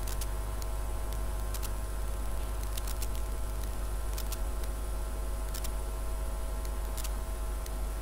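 Steady low electrical hum with a buzz of fixed tones above it, and scattered faint clicks about once a second at uneven intervals.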